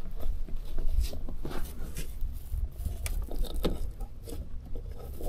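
Irregular small clicks, knocks and scrapes as a bungee tie-off line is wrapped around a rusted metal post and clipped to a jon boat, over a steady low rumble.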